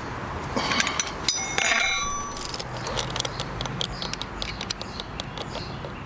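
Metal hand tools clinking and rattling while a motorcycle chain's rivet master link is pressed with a chain tool. A clank about a second and a half in rings on for about a second. Small clicks and taps of metal parts follow.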